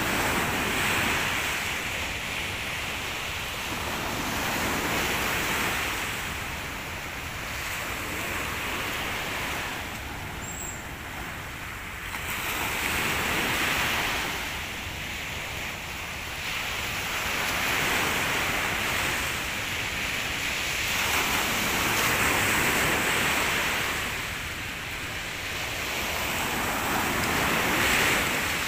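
Sea surf washing onto a beach, a steady rushing that swells and fades every four to five seconds as the waves break and run up the sand.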